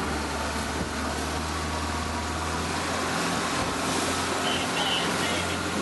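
Small tour boat's motor running steadily under way, a low hum over the rush of water and wind; the hum drops a little about three seconds in.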